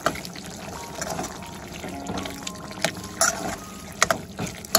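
Metal spoon stirring a thick curry gravy in a metal wok, with several sharp clinks and scrapes of the spoon against the pan over the wet sound of the simmering gravy.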